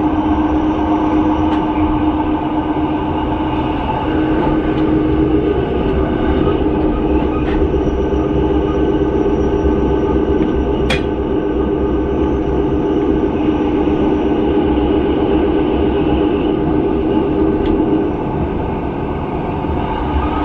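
Rhaetian Railway metre-gauge passenger train running, heard from inside the coach: a steady rumble with a constant hum. There is one sharp click a little past halfway and a few fainter ticks, and the noise eases slightly near the end.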